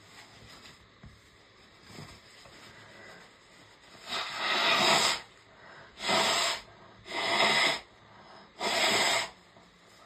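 A woman breathing hard and noisily during a sneezing fit: four loud, hissing breaths starting about four seconds in, the first about a second long, the others shorter.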